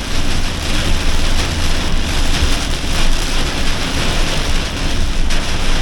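Torrential rain beating on a campervan's roof and windscreen, heard from inside the cab while it drives on a flooded road, over a steady low rumble of the moving van.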